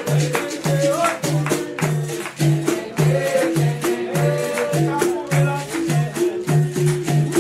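Capoeira roda music: voices singing over a steady, even beat, with the jingle of a tambourine and the rattle of a shaker on every stroke.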